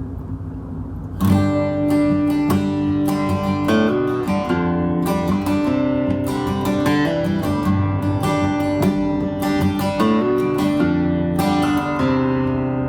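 Acoustic guitar strummed in chords, starting about a second in: the instrumental intro of a solo song before the singing begins.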